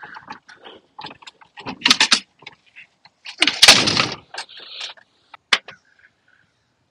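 Clattering and knocking of a Thule roof-mounted lift-assist kayak rack and the plastic kayak hull as the boat is swung up onto the car's roof bars, with a loud clatter about two seconds in, the loudest bang about three and a half seconds in, and a sharp click near the end as it settles.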